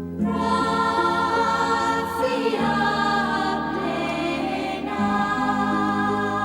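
Choir singing long held chords with instrumental accompaniment, moving to a new chord about two and a half seconds in and again about five seconds in.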